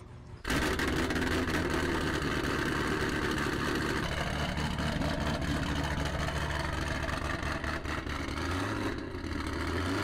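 Nissan 350Z's V6 engine idling steadily, coming in abruptly about half a second in.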